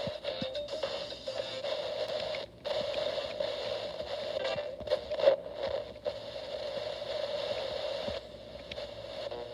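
Alarm clock radio's small speaker hissing with static during a band scan, the hiss broken by a few brief dropouts and clicks as the tuner moves between stations.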